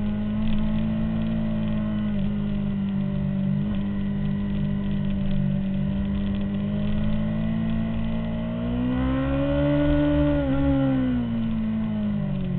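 2003 Honda CBR600RR's inline-four engine at high revs, recorded on the bike, holding a steady note through a corner, then rising in pitch on the throttle about nine seconds in and falling away again near the end.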